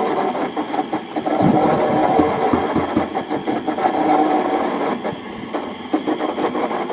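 Small drum concrete mixer running, its motor and turning drum giving a steady mechanical whine with a constant rattle as wet sand-cement mortar tumbles inside. A bucket of sand is tipped into the drum at the start.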